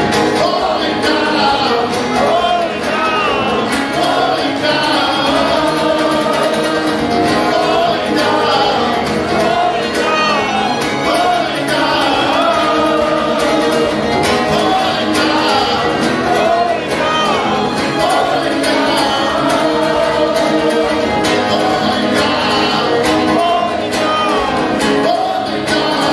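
Live acoustic performance: a man singing over acoustic guitar, amplified through a PA in a hall.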